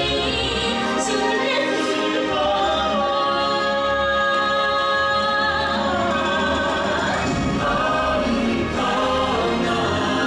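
Stage-show song: a choir of voices singing long, held notes over backing music, with steady loudness.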